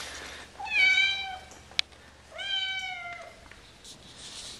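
Domestic cat meowing twice, each call about a second long and holding a fairly steady pitch, with a sharp click between them.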